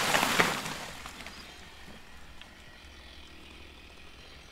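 A large tree trunk, just cut through with a chainsaw, cracking and crashing down. The loud crash with sharp snaps dies away within about a second, leaving a faint outdoor background.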